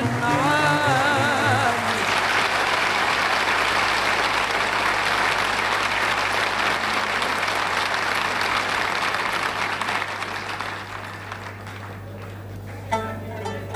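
A concert audience applauding after a sung phrase with orchestra ends about two seconds in. The applause dies away after about ten seconds, and the strings of an Arabic orchestra start playing near the end. A steady low hum runs underneath.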